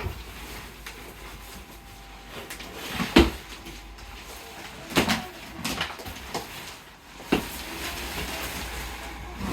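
A few separate knocks and clatters of objects being handled, the loudest about three seconds in, with others about five and seven seconds in.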